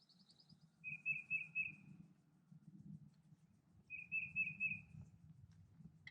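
A small bird chirping nearby: two short phrases of four quick notes each, about three seconds apart, with a fainter, higher run of notes at the start, over a faint low hum.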